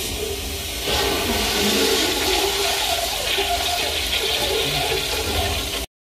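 A toilet flushing: a rush of water that grows louder about a second in and cuts off suddenly near the end.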